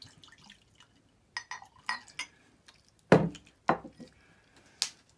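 Shochu being poured from a glass bottle into a drinking glass, with several sharp glassy clinks. A loud knock comes about three seconds in, with a smaller one just after.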